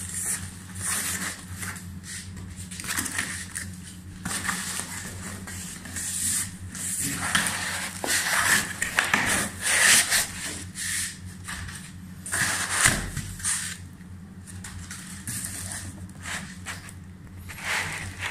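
Packaging being handled while a TV is unboxed: a foam packing block and cardboard rubbing and scraping against each other, with plastic wrap crinkling, in irregular bursts over a low steady hum.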